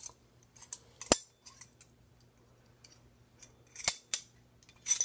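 A metal teaspoon and a box of borax being handled: several sharp clicks and clacks spread apart, the loudest almost four seconds in.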